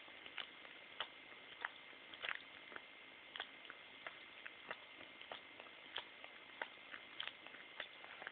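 A dog licking: a run of faint, wet-sounding clicks at an uneven pace of about one to two a second.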